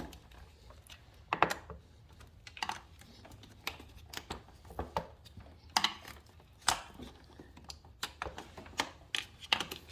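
Irregular sharp clicks and taps of a flathead screwdriver prying at motorcycle plastic trim and its clips, with the louder snaps about a second and a half in and around six to seven seconds in.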